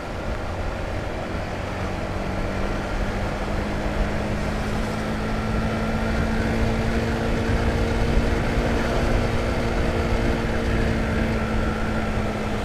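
Honda CBR150R's single-cylinder engine running steadily at cruising speed, with wind rumble on the helmet microphone.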